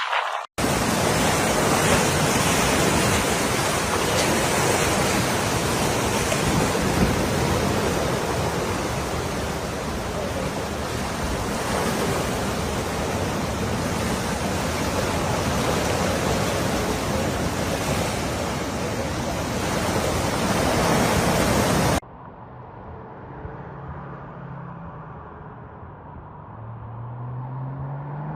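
A steady, loud rushing roar of storm weather, cutting off suddenly about 22 seconds in. After it, a quieter background with a vehicle engine rising in pitch near the end.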